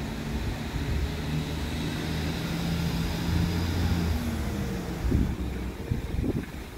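An engine drones steadily, with a low pitched hum that swells over the first few seconds and then fades after about four seconds. Irregular low gusts of wind buffet the microphone near the end.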